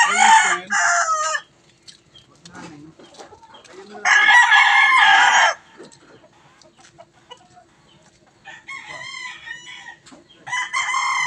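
Roosters crowing, four crows spaced a few seconds apart, the third fainter than the others and the last running on past the end.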